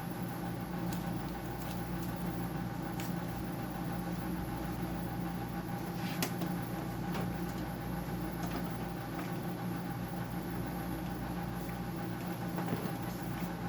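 Steady machine hum with a few light clicks and taps of parts being handled.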